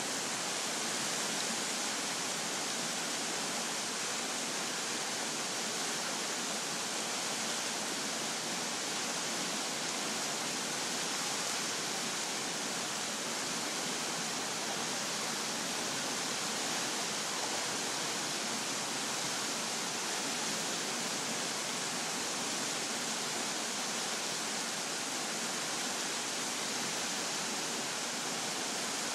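Floodwater rushing steadily down a swollen creek, a constant unbroken wash of whitewater.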